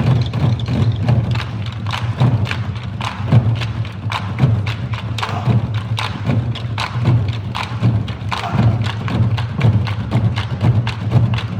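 Korean nanta drum ensemble playing: a fast, driving rhythm of stick strikes, with a deep drum boom under sharp clicking hits.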